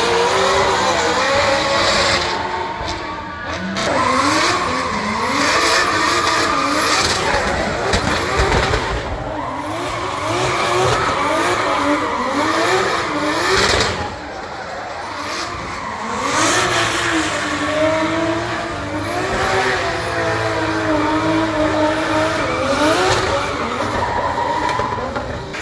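Two drift cars sliding in tandem, their engines revving up and down over and over under hard throttle, with tyres squealing and spinning through clouds of tyre smoke.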